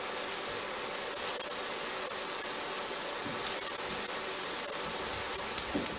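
Steady sizzle of sausages and onions frying in hot fat, as raw bangers go onto the preheated grill plate.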